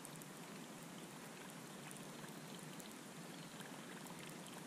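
Faint, steady water noise, small ripples lapping at a small boat, with scattered light ticks.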